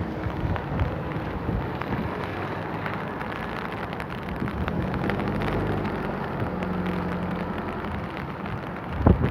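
Steady rain falling, with many fine drop ticks over a low, steady hum. A brief louder rush comes near the end.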